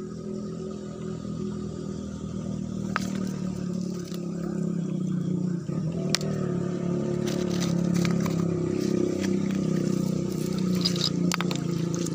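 An engine running steadily, getting louder about a third of the way in, with a few sharp clicks of stones knocking together.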